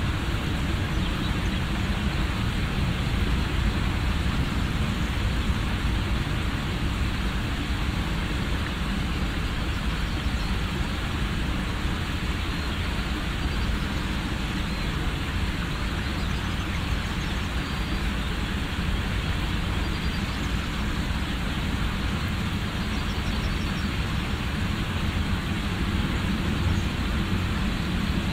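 Airbus A321 jet engines at taxi power, a steady rumble and hiss that does not rise or fall.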